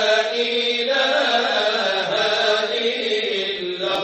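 Intro music of chanting: a voice holding long notes that glide slowly up and down in pitch.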